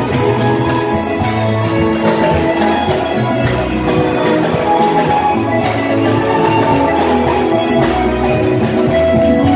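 Live gospel worship band playing an upbeat song: hand-played congas and drum kit over bass guitar, electric guitar and keyboard.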